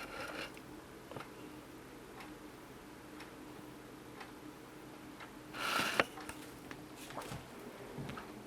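Faint ticking about once a second over a low steady hum, with a short rustle about six seconds in.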